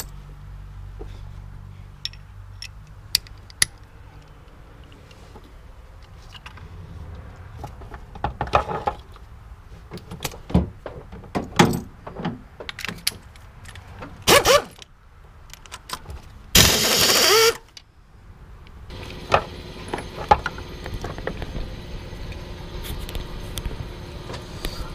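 Pneumatic air ratchet running in short bursts, the longest about a second long some two-thirds of the way through, backing out the thermostat housing bolts on a Duramax diesel. Between the bursts come sharp metal clicks and clinks of the socket and loose bolts.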